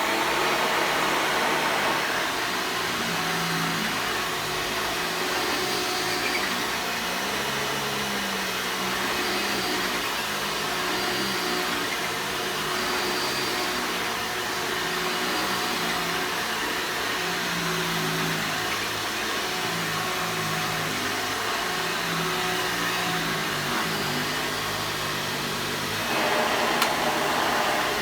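Hoover Soft and Light upright vacuum cleaner from about 2000, running steadily with a loud whirring rush, just after being switched on. Near the end it grows louder and brighter.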